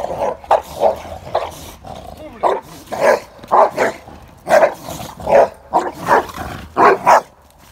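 A boxer and a young pit bull barking at each other through a chain-link fence: an irregular volley of about a dozen loud, sharp barks, roughly two a second.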